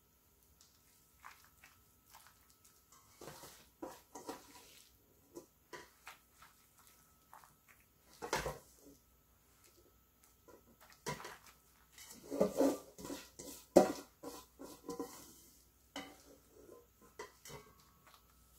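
Freshly seasoned napa cabbage kimchi (geotjeori) being pressed and packed into a glass container by a plastic-gloved hand: irregular soft wet squishes and crinkles with light knocks against the glass, busiest about twelve to fourteen seconds in.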